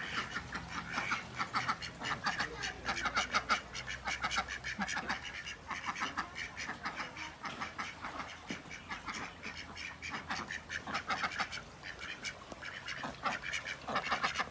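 A flock of domestic ducks quacking, many short calls overlapping almost without a break, thinning briefly a couple of times.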